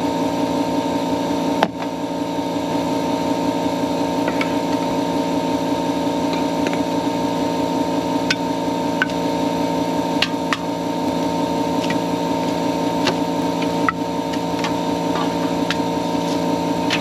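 A steady machine hum of several level tones, with faint scattered clicks and knocks over it; the sharpest is about two seconds in.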